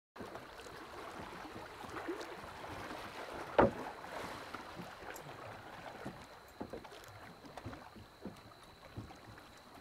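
River water lapping and dabbling with small splashes, and one sharp splash-like knock about three and a half seconds in.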